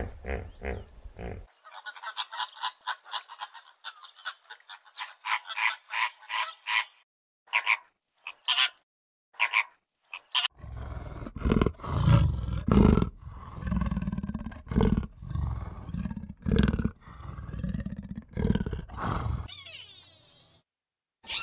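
A sequence of animal calls: a flock of flamingos honking in quick, evenly repeated calls, a few single calls after them, then a run of loud, deep grunting calls from another animal, about one a second.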